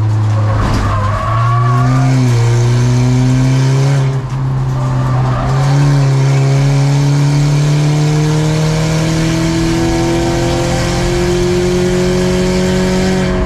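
Race car engine running under load. It changes pitch abruptly a few times in the first five seconds, with a brief drop in level about four seconds in, then rises slowly and steadily in pitch for the rest of the time.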